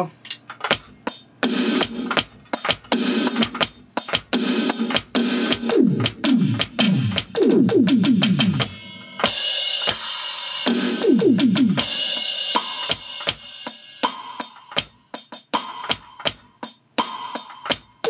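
A Roland SPD-SX Pro sampling pad played with drumsticks, sounding a preset drum kit: a fast, busy pattern of electronic drum hits with quick falling-pitch tom sounds and a cymbal crash about nine seconds in.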